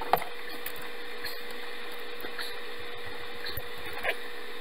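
PEX crimp tool being worked on a fitting: a sharp click just at the start and a smaller one about four seconds in, over a steady low hum.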